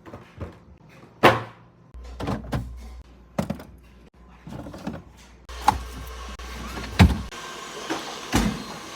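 Groceries and containers being put away in a fridge: a series of knocks and clunks, the loudest about a second in and near the end, over a low hum that comes and goes.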